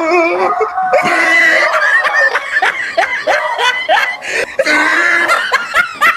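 Loud human laughter in quick repeated bursts, with some high shrieks mixed in.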